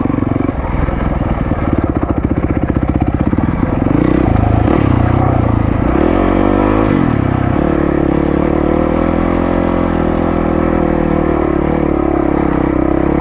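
450 cc four-stroke single-cylinder dirt bike engine running on the move. The revs rise and drop between about six and seven and a half seconds in, then hold steady.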